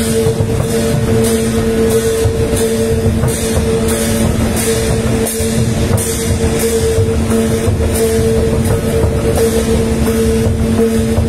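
A large bass drum beaten in a slow, steady marching beat, about three strokes every two seconds, over a steady low hum.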